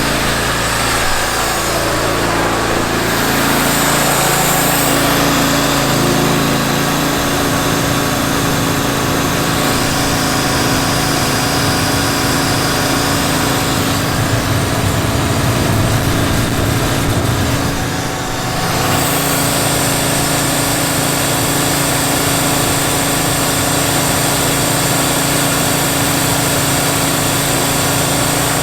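Gas-engine pressure washer running steadily, with the hiss of its high-pressure water jet spraying on concrete to lift a rust stain.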